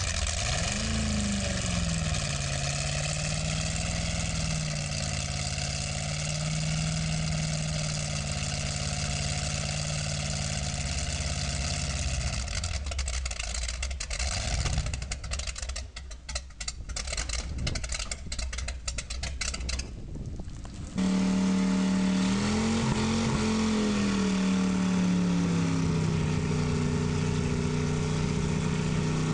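Ford 351 cubic-inch marine V8 running on a test stand. It is blipped twice, then held at a steady speed. Partway through the sound breaks up and cuts in and out, then returns suddenly louder with another short rev before steadying again.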